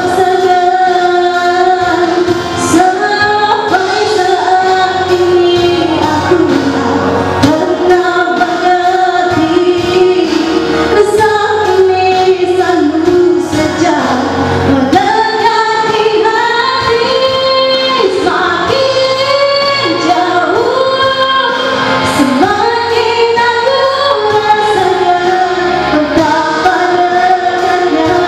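A woman singing into a handheld microphone over instrumental accompaniment, with long held notes that glide between pitches.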